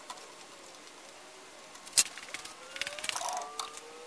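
Hand work on a Hardinge HC chucking lathe: a single sharp metallic click about halfway through, then a short flurry of light clinks and rattles as the chuck and turret tooling are handled. A faint, slowly rising tone comes in near the end.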